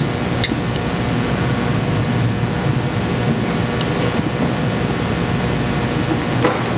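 Steady rushing background noise with a low hum, the room noise of a large hall, with no speech.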